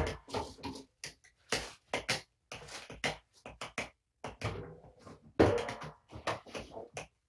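Cat litter box being cleaned: a run of short, irregular gritty scrapes and rustles, with brief gaps between.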